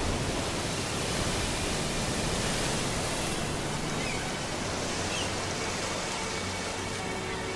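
Steady rushing noise of ocean surf washing onto a beach.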